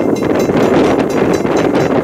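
Steam locomotive exhaust chuffing in a steady rhythm, about four beats a second, heard through heavy wind noise on the microphone.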